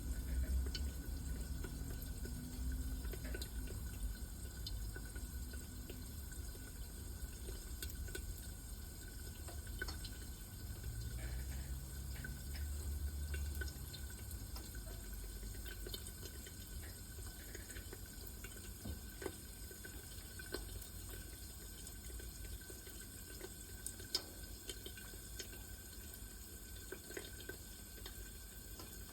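Popcorn kernels popping sparsely: scattered single sharp pops at irregular intervals, one louder pop about 24 seconds in, with a low rumble underneath during the first half.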